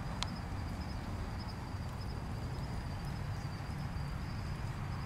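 Quiet outdoor night ambience: a steady low rumble and hiss with a faint, steady high-pitched whine, and one sharp click about a quarter of a second in.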